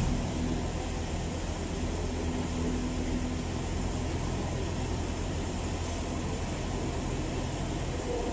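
Steady low mechanical hum of machinery running, unchanging, with a faint higher tone that comes and goes.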